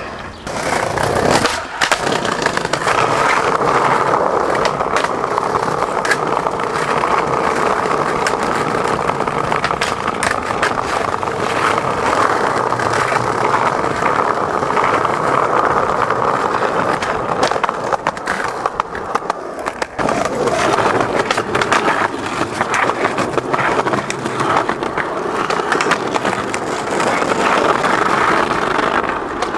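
Skateboard wheels rolling steadily over concrete and brick pavement, with frequent clicks and knocks from the boards. The rolling dips briefly about two-thirds of the way through, then resumes.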